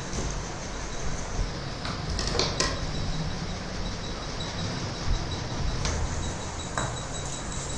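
Raw chicken being cut and handled on a wooden chopping block: a few light knocks and clicks over a steady low background hum with a faint high whine.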